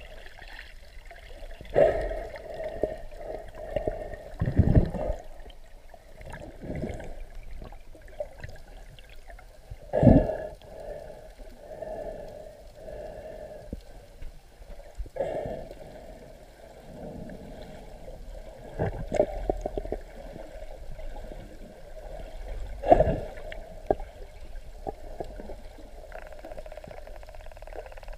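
Muffled underwater water noise around the camera: water gurgling and rushing past as the snorkeler swims, with several thumps, the loudest about ten seconds in and another near twenty-three seconds.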